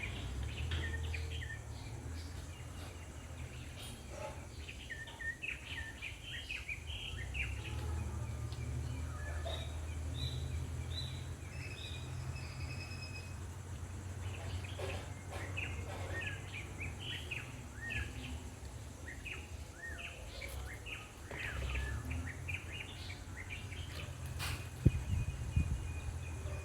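Birds chirping in clusters of short, high calls over a steady low rumble, with one sharp click near the end.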